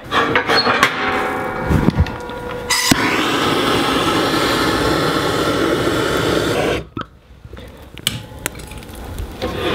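Butane torch lighter clicking alight and hissing steadily for about four seconds as it lights kindling in a wood stove, then cutting off suddenly. Metal clicks and knocks from handling the stove come before it, and a few faint knocks after.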